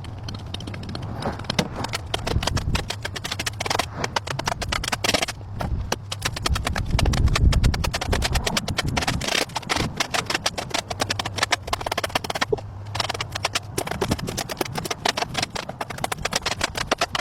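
Rapid, irregular clicking and tapping, with a heavier low rumble about seven to eight seconds in.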